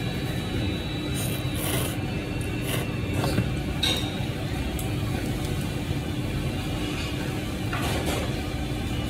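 Ramen noodles slurped in a few short bursts, one about a second and a half in and one near the end, with a light clink about four seconds in, over a steady low background hum.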